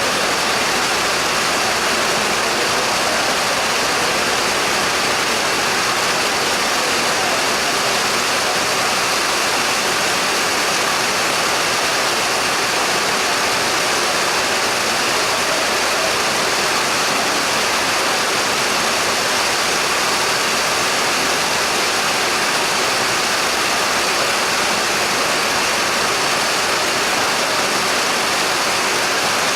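Heavy rain pouring down, a steady unbroken hiss that holds the same level throughout.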